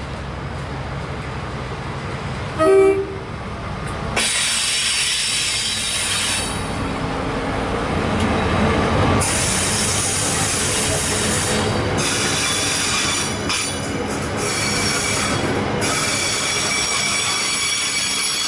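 Freightliner Class 70 diesel locomotive 70011 approaching with its engine rumbling, and a short horn blast about three seconds in. Then a train of box container wagons rolls past with high-pitched wheel squeal and rail clatter.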